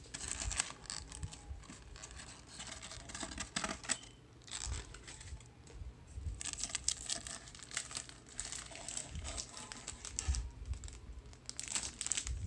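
Crumpled paper packing crinkling and rustling as it is pulled out of a cardboard tube, in several stretches with short pauses.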